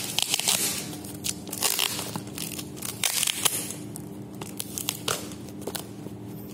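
Packing tape and wrapping on a small parcel being torn and pulled apart by hand: irregular ripping and crinkling with scattered crackles. The tape is strong and gives way only with effort.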